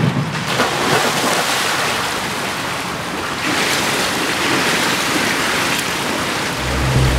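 Splash of a swimmer diving into a swimming pool, then a continuous rush of churning water and bubbles picked up by a camera at and under the surface. Music comes in near the end.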